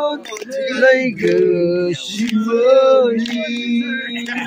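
Men and women singing together, several voices at once, in long held notes.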